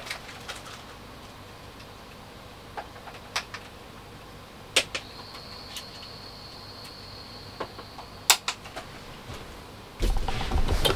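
Scattered light clicks and knocks of someone rummaging for an SD card, with a faint high steady whine for a few seconds in the middle. Near the end, louder rustling and handling noise comes in.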